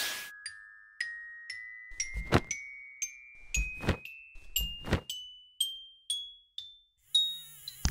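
A rising run of bell-like mallet percussion notes, about two a second, each ringing note a step higher than the one before. A few dull thuds fall among the notes.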